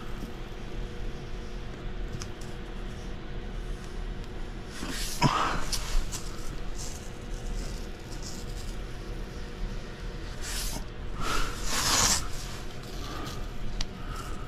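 Masking tape and plastic sheeting being handled while masking for paint: a few brief rasping bursts, about five seconds in and again around ten to twelve seconds in, over a steady low hum.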